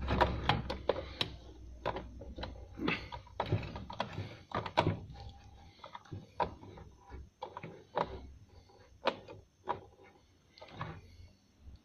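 Irregular small metallic clicks and taps as the hook and bobbin-case parts of a Singer 354 sewing machine are handled and fitted, over a faint low hum that fades out about halfway.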